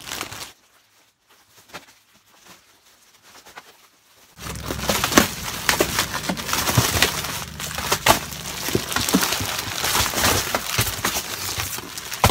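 Plastic-wrapped packs of braiding hair crinkling as they are shuffled and pulled out of a cardboard box, with scattered small knocks against the cardboard. It starts about four seconds in, after a stretch of near silence.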